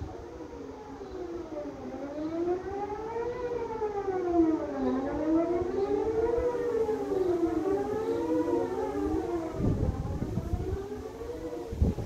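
Distant outdoor tornado warning sirens sounding a monthly test. Several overlapping tones rise and fall in pitch every few seconds, growing louder after the first couple of seconds.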